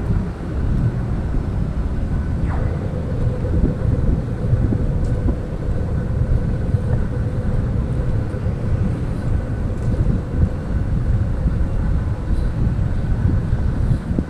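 Steady low rumble of city street noise, vehicles and wind on the microphone, with a faint steady hum joining about two and a half seconds in.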